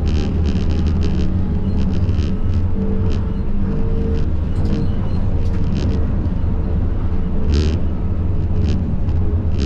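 Siemens Combino (GVB 13G) tram running along its track: a steady low rumble of wheels and running gear, with a faint tone that comes and goes and brief high-pitched noises now and then, the strongest about two-thirds of the way through.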